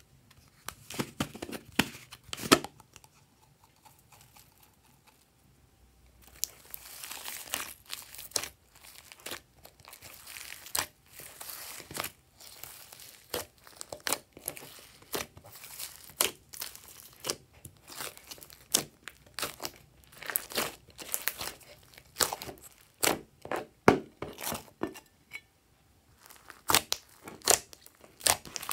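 Hands squeezing and kneading fluffy slime mixed with foam beads: dense, irregular wet crackling and popping that goes on for about twenty seconds, pausing briefly near the end. A few sharp clicks come in the first seconds, before the kneading starts.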